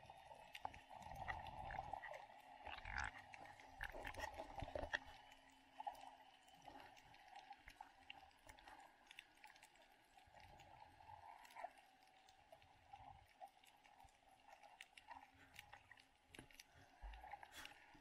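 Faint, muffled underwater sound picked up by an action camera: scattered clicks and crackles, with low bumps in the first few seconds.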